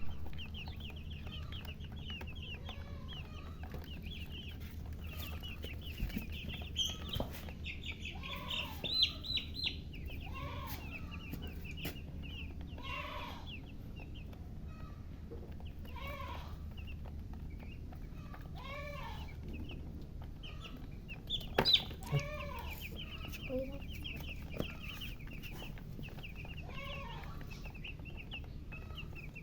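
Baby chicks peeping in quick runs of high chirps, with a hen giving a low cluck every few seconds. A steady low hum runs underneath.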